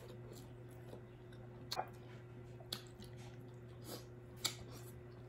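Quiet close-up eating sounds: chewing, with a few sharp mouth clicks and smacks, over a faint steady hum.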